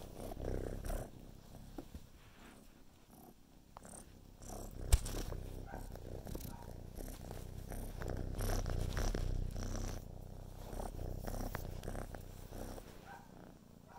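Kitten purring, a low rumble that swells and fades and is loudest a little past the middle, with one sharp knock about five seconds in.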